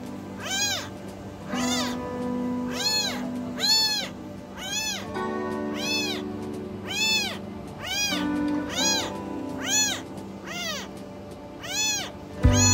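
A very young, abandoned kitten meowing repeatedly, about once a second: high, thin cries that rise and fall in pitch, a kitten crying for its missing mother. Soft background music with long held notes plays underneath.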